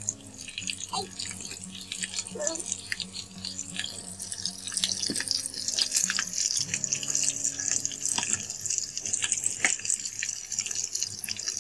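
Potato-filled flour rolls deep-frying in hot oil in a cast-iron pan, sizzling and crackling steadily. A few sharp clicks come as a metal spoon turns the rolls over once one side has firmed up.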